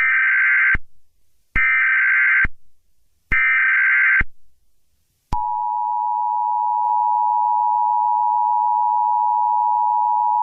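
Emergency Alert System tones: three bursts of the SAME digital header, a shrill data screech each just under a second long and about a second apart. About five seconds in comes the EAS two-tone attention signal, a steady, loud dual-pitched tone that opens an emergency alert, here a tornado warning.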